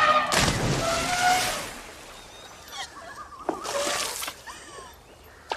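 Water splashing and sloshing as an elephant sprays water from its trunk: a loud splash in the first two seconds, then a second, shorter splash about three seconds in.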